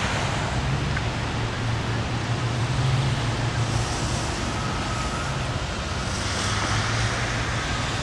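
Steady outdoor background noise with a low hum underneath, like distant traffic on a wet night.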